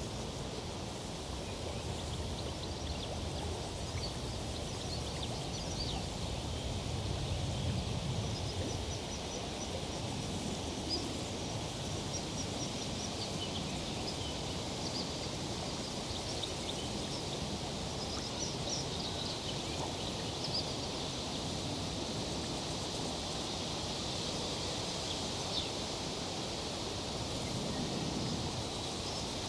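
Tree foliage rustling steadily in a summer breeze, with faint, scattered bird chirps.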